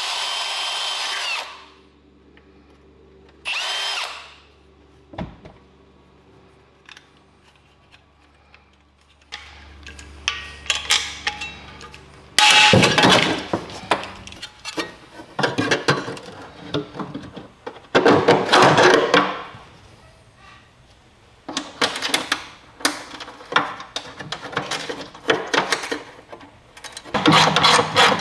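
A power tool running in repeated bursts of a second or two, with pauses between. Near the start a steady whine cuts off after about a second and a half, and a brief one sounds again a couple of seconds later.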